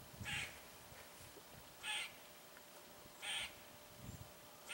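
A bird calling in the woods: four short calls, evenly spaced about a second and a half apart, the last right at the end.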